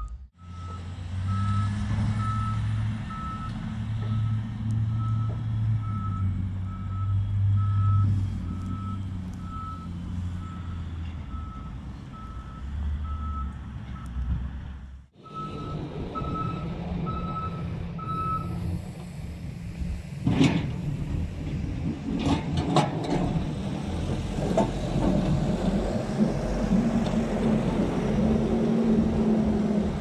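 Diesel engines of a Case backhoe loader and a Cat 950H wheel loader running while plowing snow, with a reversing alarm beeping steadily that stops a little past halfway. Toward the end a few sharp clanks and knocks sound over the engine.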